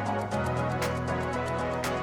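Background music with a steady beat about once a second over changing sustained bass notes.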